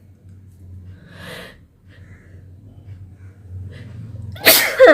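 A woman sniffing and breathing in, then a sudden loud sneeze near the end with a falling voiced cry, set off by sniffing pepper powder.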